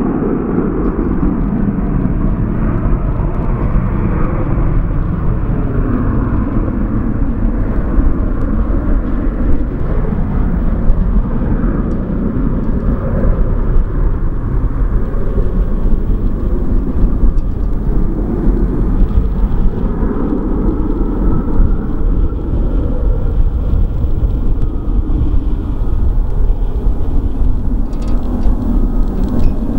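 Boeing 737-800's CFM56 turbofans at takeoff power on the takeoff roll: a steady, loud jet rumble heavy in the low end, swelling and easing slowly as the airliner accelerates away down the runway.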